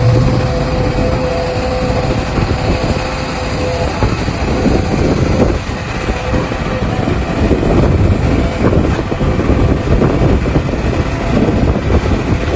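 Excavator's diesel engine working under load, with a steady hydraulic whine for the first few seconds and continual knocking and rattling.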